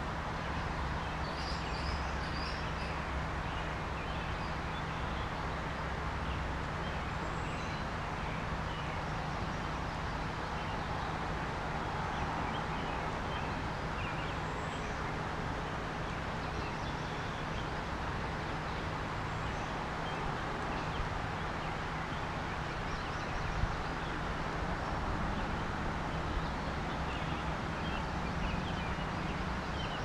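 St. Croix River water flowing: a steady rushing hiss, with a steady low hum underneath and faint high chirps here and there.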